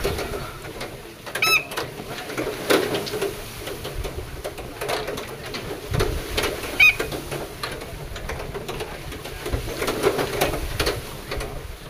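Wooden wheel-and-shaft rig turned by a running bull, clattering with irregular wooden knocks, with two brief high squeaks, one about a second and a half in and another about seven seconds in.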